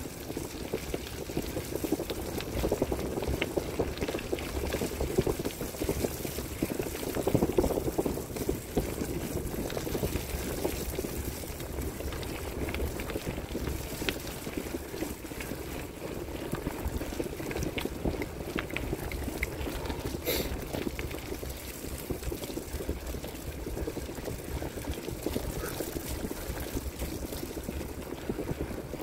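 Bicycle tyres rolling along a wet dirt-and-gravel road: a steady rolling noise with a low rumble underneath, broken by scattered small clicks and one sharper click about twenty seconds in.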